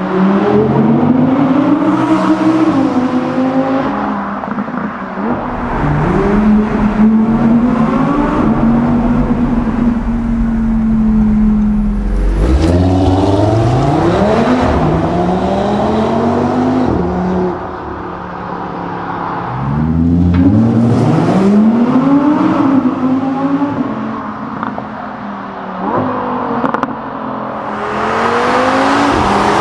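Audi R8 V10 engine accelerating hard through the gears, its pitch rising in a series of pulls, each cut short by an upshift, with the sound easing off briefly between runs.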